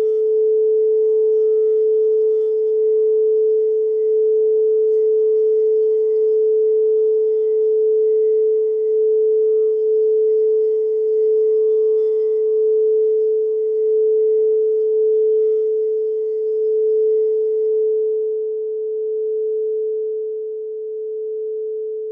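Frosted quartz crystal singing bowl sounding one steady, sustained tone that pulses slowly and fades over the last few seconds.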